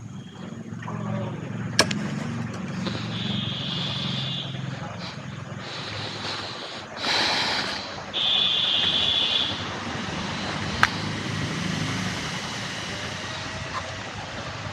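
MotoJack motorcycle lift being fitted and raised under the bike: two sharp metal clicks, about two seconds in and again about eleven seconds in, over a steady low hum like traffic. A high steady buzzing tone sounds twice for over a second each, and a short rushing noise comes about seven seconds in.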